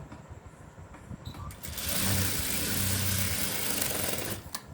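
Electric sewing machine running in one steady burst of about two and a half seconds, starting a little under two seconds in and stopping near the end: a low motor hum under a fast, even needle rattle.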